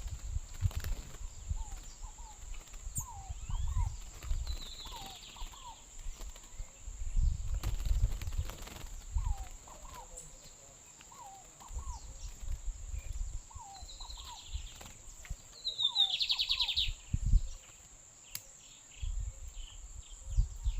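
Lined seedeater (bigodinho) giving short buzzy bursts of song, the fullest about two-thirds of the way through, between soft repeated short call notes.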